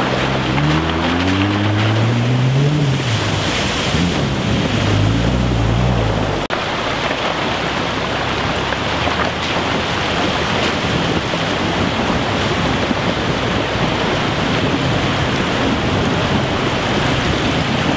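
Rushing river water with wind on the microphone. Over it, during the first six seconds, an off-road SUV's engine revs up and eases off twice as the vehicles cross the shallow river.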